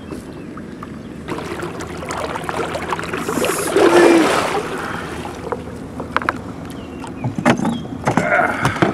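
A big flathead catfish thrashing and splashing at the side of the boat as it is grabbed by the lip and hauled aboard, the splashing loudest about four seconds in. Several sharp knocks follow near the end as the fish is lifted into the boat.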